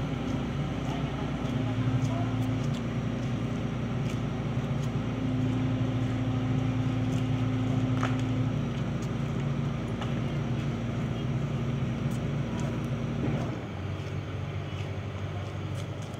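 Diesel engine of a 7-ton-class hydraulic excavator running steadily under working load, its engine note shifting a few times, then easing off and turning quieter about three-quarters of the way through.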